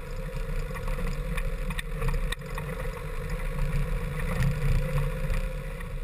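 Land Rover Discovery 1's 300Tdi diesel engine running as the truck drives over a rocky gravel track, heard as a muffled, uneven low rumble with a faint steady hum.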